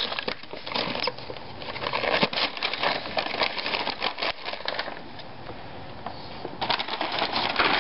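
Christmas wrapping paper being torn and crinkled as a gift is unwrapped, a dense run of crackles and rips with a short lull a little past the middle.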